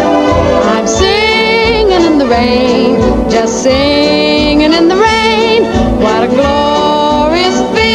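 Slowed-down, reverb-heavy recording of a male crooner singing over an orchestral accompaniment. He sings long held notes with a wide vibrato, gliding up and down, from about a second in.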